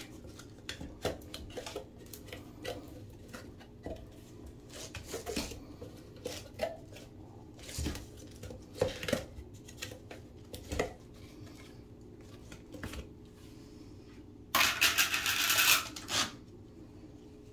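Plastic lid of a tub of DryDex compound being handled and pressed shut on the tub: a string of irregular plastic clicks and knocks. About fifteen seconds in comes a louder harsh, scratchy noise lasting about a second and a half.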